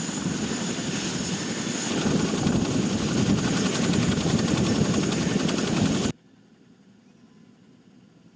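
Military helicopter running, steady rotor chop with a high turbine whine; the sound cuts off abruptly about six seconds in, leaving a faint hiss.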